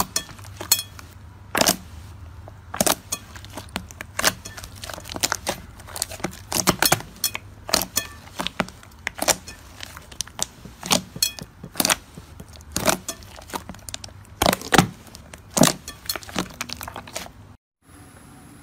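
Thick, soft uncrusted iceberg slime being kneaded and pressed by hand, giving irregular sharp pops and clicks as trapped air bursts, about one or two a second, over a faint low hum. The sound cuts out briefly near the end.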